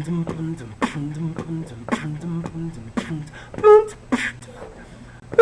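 A man beatboxing: mouth-made drum strokes about two a second over a hummed low bass line, with a high vocal yelp about three and a half seconds in and another at the end.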